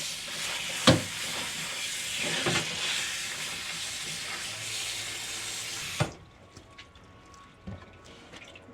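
Kitchen tap running into a sink as parboiled beef and tendon are rinsed under cold water, with a few sharp knocks. The water cuts off suddenly about six seconds in, leaving only faint small clatters.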